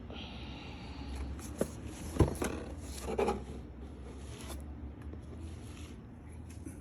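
Package being handled: a few sharp knocks and short scraping, rustling sounds in quick succession from about one and a half to three and a half seconds in, over a steady low hum.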